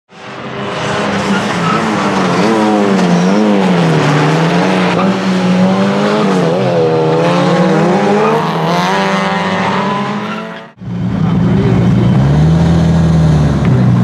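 Tuned Renault 5 GT Turbo's turbocharged 1.4-litre four-cylinder engine revving hard up and down through the gears at speed. About eleven seconds in it cuts suddenly to the same engine running steadily at low revs with a brief light rise.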